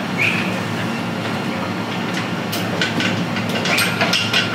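Metal tool clicks and clinks, several in the second half, from a spanner working nuts on the newly fitted engine, over a steady low mechanical hum.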